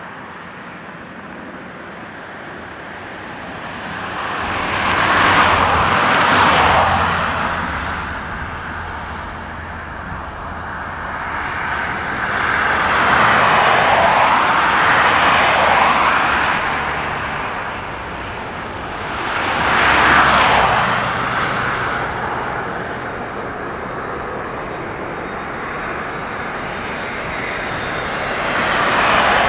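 Vehicles passing one after another outdoors, four times, each swelling over a few seconds and then fading, over a steady low hum.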